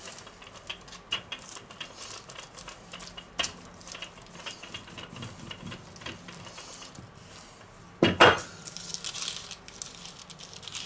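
Wooden rolling pin rolling out pizza dough on floured baking paper over a countertop: soft rolling and paper rustle with scattered light knocks, and a louder double knock about eight seconds in.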